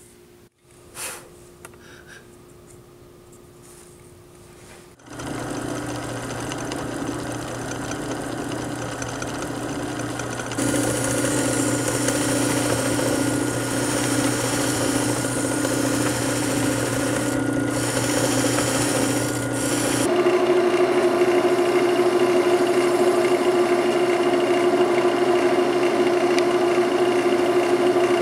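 Small shop machines running steadily after a quiet start with a click. From about five seconds a motor hums; from about ten seconds a buffing wheel spins against the wooden duck call with added hiss; from about twenty seconds a wood lathe spins the call at a steady, slightly higher pitch.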